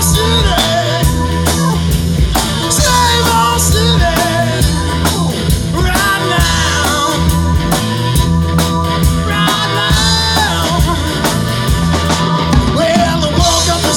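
Live rock band playing: electric guitar, bass guitar and drum kit with a steady beat, and a man singing in phrases that come and go.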